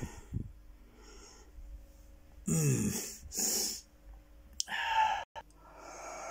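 A person's breathing close to the microphone, with a short low grunt or sigh and a couple of handling clicks. The sound drops out completely for an instant about five seconds in.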